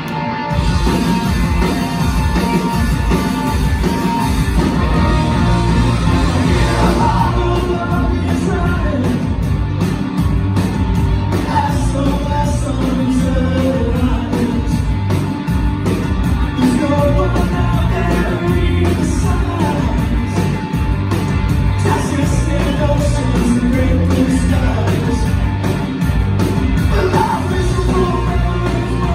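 Live punk rock band playing a song: electric guitars, bass and drums with a man singing, heard in a large concert hall. The full band comes in just after the start over a strummed guitar.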